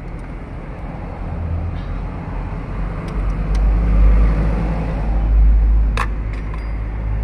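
A motor vehicle engine rumbling, louder in the middle, with one sharp click about six seconds in.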